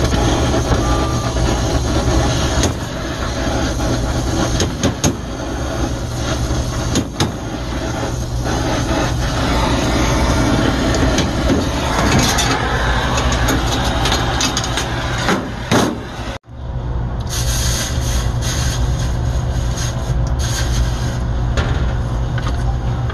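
Brazing torch flame burning with a steady rushing noise as it heats copper refrigeration joints to unsweat a thermostatic expansion valve. A few light clicks are heard. The noise drops out abruptly for a moment about 16 seconds in, then carries on.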